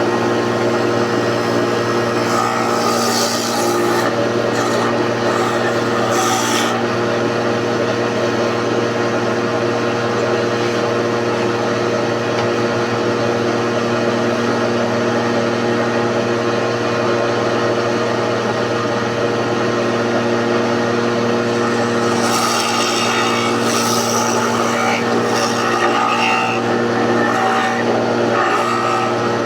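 Electric hand planer running at a steady speed, with louder noise from the blade cutting wood twice: a few seconds in, and again in the last third.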